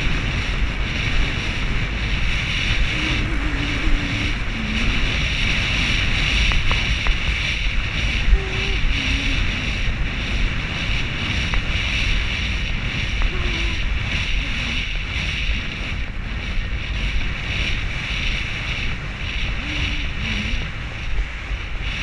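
Steady rushing wind noise on a helmet-mounted action camera, carried by a horse galloping on a sandy beach, with brief faint voice-like sounds now and then.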